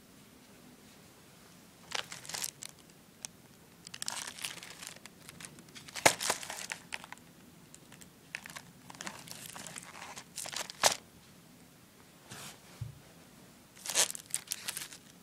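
Cardboard firecracker boxes and their crinkly plastic and foil wrapping being handled: irregular crinkling and rustling, with a few sharp knocks, the loudest about six and eleven seconds in.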